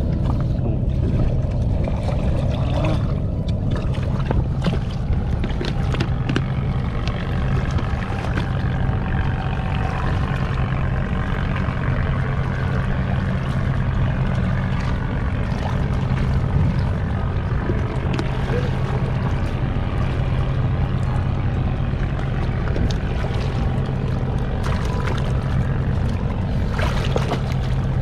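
A steady low engine drone throughout, with water splashing and sloshing as hands turn over rocks in shallow river water.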